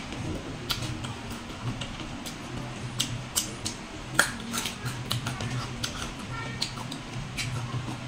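Crisp crunching and chewing of raw green fruit close to the microphone: a run of sharp, irregular crunches and mouth clicks, densest in the middle.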